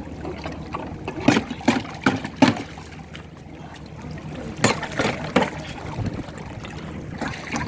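Water sloshing and splashing, with several irregular sharp splashes in two clusters, one early and one past the middle.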